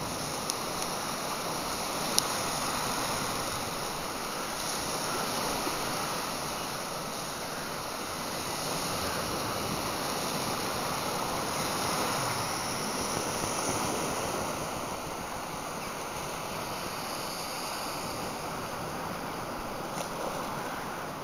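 Sea waves washing in steadily, swelling and easing every few seconds. A single sharp click comes about two seconds in.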